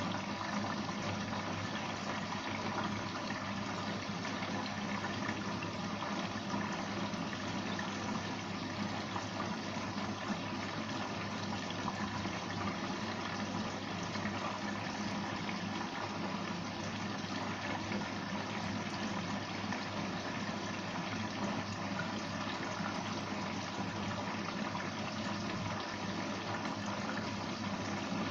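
Steady rush of running water, unchanging, with a faint even hum beneath it.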